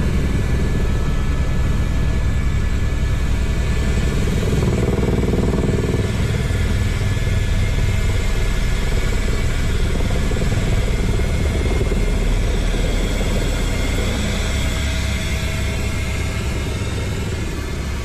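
Helicopter in low flight, heard close up from a camera on its fuselage: steady rotor and turbine noise with wind rush, fading a little over the last few seconds.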